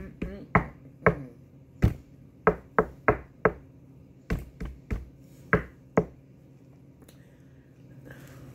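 A person making a loose rhythmic run of about a dozen sharp snaps, stopping about six seconds in.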